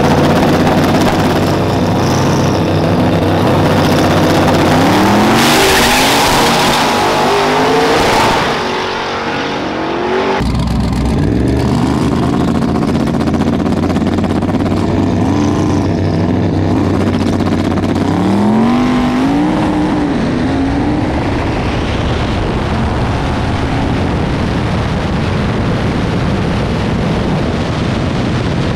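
Pontiac Trans Am WS6 drag car's V8 revving hard at the start line. About ten seconds in it runs at full throttle down the drag strip, engine pitch flaring up and down several times as the rear tyres break loose. It then settles into a steady drone, the gearbox failing to upshift.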